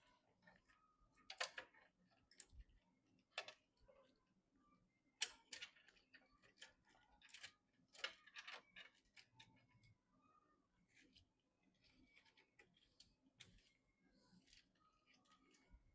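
Scattered light clicks and small knocks from handling computer parts and fittings during PC assembly. The sharpest click comes about five seconds in.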